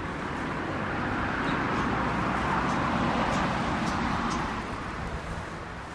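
Helicopter passing overhead: a rushing engine and rotor noise with a low hum beneath, swelling to its loudest about halfway through and then fading away.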